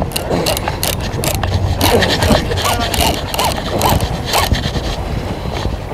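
Wind and water noise on open sea: irregular knocks and splashes over a low steady hum.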